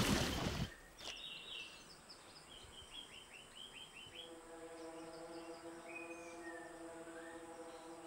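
Loud splashing water and score cut off in under a second. After that, quiet savanna ambience with bird calls: a quick run of chirps about three seconds in and a few faint whistles later, with a soft held musical drone coming in about halfway.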